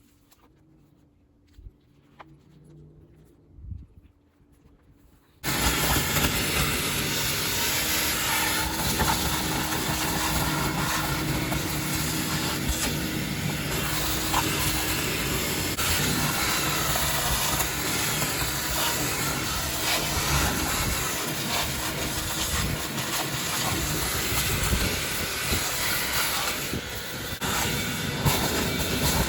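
A loud, steady rushing hiss, like a running machine, starts abruptly about five seconds in after near quiet with a few faint knocks.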